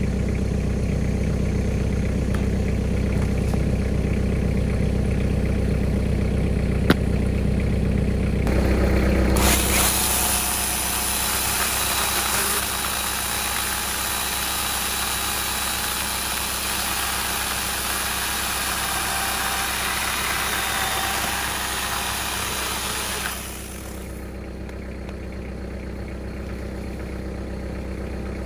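A steady engine idle. About a third of the way in, a cordless angle grinder with a chainsaw attachment comes in loud, its chain cutting through a log, and runs for about fourteen seconds before dropping away, leaving the idle.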